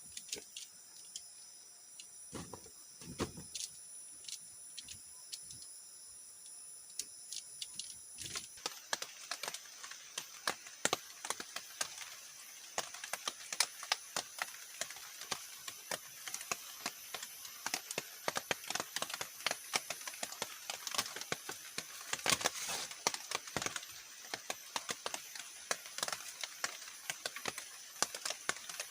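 Forest insects keeping up a steady, high-pitched buzz. From about a third of the way in, dense, irregular crackling and clicking joins it.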